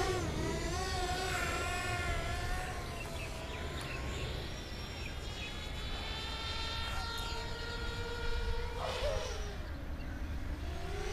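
Racing quadcopter with T-Motor 2208 brushless motors and HQ5045 bullnose props in flight, its motor-and-prop whine rising and falling in pitch with the throttle. The pitch wavers for the first few seconds, holds steady for a stretch, then drops near the end.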